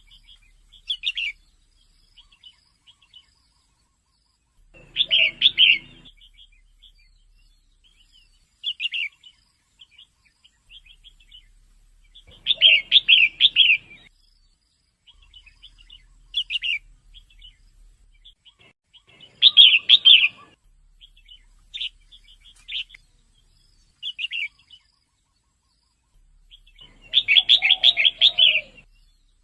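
Female red-whiskered bulbul calling in short, chirpy phrases every few seconds, with a longer, fuller burst near the end.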